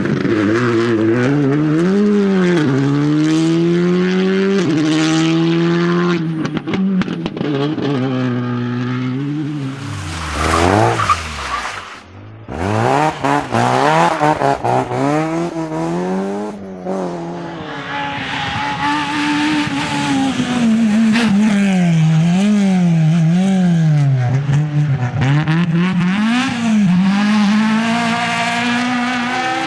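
Rally cars driven hard, engines revving up and dropping back again and again through gear changes and lifts. About ten seconds in, a car passes with its pitch falling away. Another car follows, its engine rising and falling through the corners.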